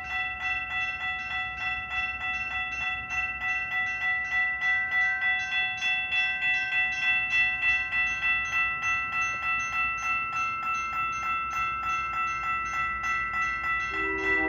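Railroad crossing bell ringing steadily at about two strikes a second over the low rumble of freight cars rolling past. A lower, horn-like chord comes in right at the very end.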